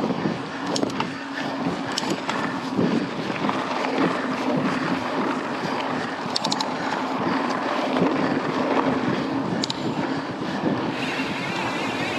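Wind buffeting the microphone as a mountain bike is ridden into a headwind, over the steady rolling noise of knobby tyres on the dirt trail, with a few light clicks and rattles.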